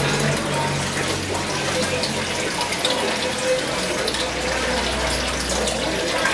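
Steady bubbling and splashing of aquarium water, from the tank's water circulation breaking the surface, with a low hum underneath.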